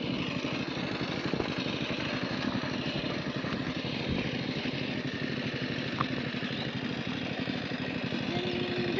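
An engine running steadily with a rapid low throb, unchanging in level.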